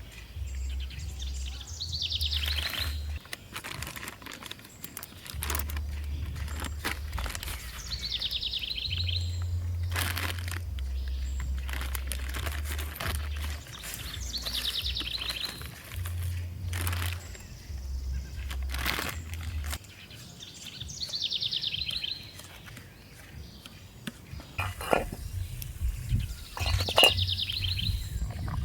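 A bird repeats a short, fast trilled call about every six to seven seconds, five times in all. Under it runs a low hum that changes pitch in steps, with scattered clicks and rustles.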